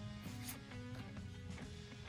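Quiet background music with guitar.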